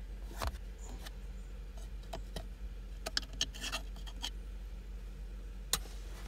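Scattered clicks and rustles of a phone being handled, a hand and sleeve brushing against the microphone, with a cluster of taps about three to four seconds in, over a steady low hum.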